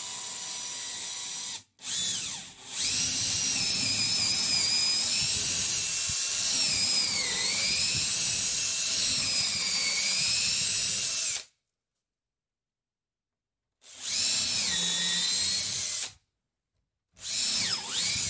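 Power drill boring a 7/32-inch pilot hole through the wall into a wooden 2x4 stud for a lag screw, running in several bursts. Its motor whine sags in pitch at times as the bit bites into the wood, most clearly about seven seconds in.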